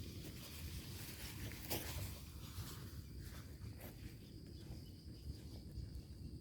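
Outdoor forest ambience: a steady, thin, high insect drone over a low rumble, with scattered crackles and a sharper snap a little under two seconds in.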